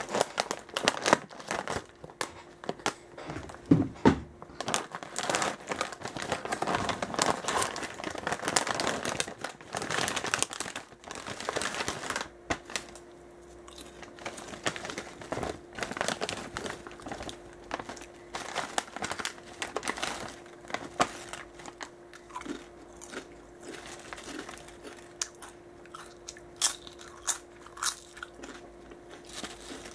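A foil-lined Pocachip potato chip bag crinkling loudly as it is handled and pulled open, dense for about the first twelve seconds. After that, quieter rustling of the chips and bag with scattered sharp crunches.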